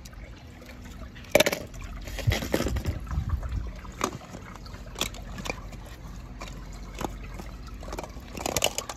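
Water sloshing and dripping as a pool skimmer net full of clear plastic eggs is handled, with scattered clicks and knocks of the wet plastic eggs, more of them near the end.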